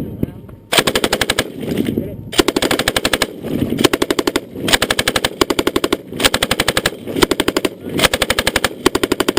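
PKM general-purpose machine gun firing a string of short bursts, each a rapid run of shots lasting under a second, with pauses of about a second between bursts.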